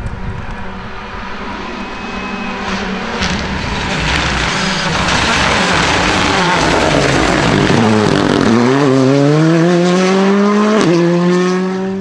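Hyundai i20 rally car's turbocharged four-cylinder engine at full throttle, growing louder as the car closes in. Its note falls as the car passes, then climbs as it accelerates away, with an upshift near the end.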